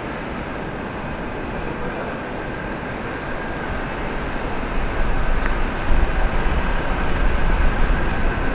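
Steady city street noise, with wind gusts buffeting the microphone as an uneven low rumble from about five seconds in.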